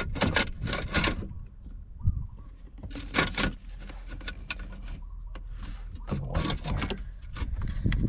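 Hands working the plastic shifter assembly and gear shift cable end inside a Nissan Frontier's center console: three short bouts of clicking and rattling, near the start, about three seconds in and past six seconds, over a steady low rumble.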